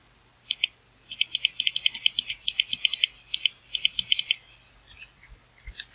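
Quick runs of small plastic clicks from computer input devices, about ten a second at their fastest, stopping about four seconds in, with a few fainter clicks near the end.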